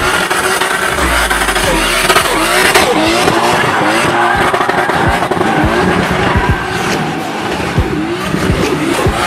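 Nissan Skyline's engine revving up and down hard through a drift, with tyres squealing and skidding on the tarmac.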